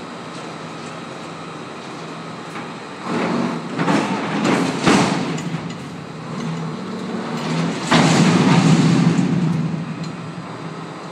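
Roll-off truck's engine running steadily while the compactor container is worked back onto the dock. There are two spells of loud metal scraping and clanking, about three seconds in and again about eight seconds in.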